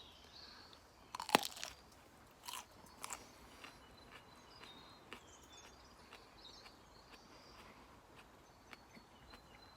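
A bite into a raw Scotch bonnet chilli pepper, with one sharp crunch a little over a second in, followed by quieter chewing crunches.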